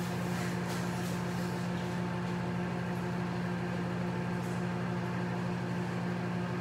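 Microwave oven running with a steady, even hum, heating the noodles.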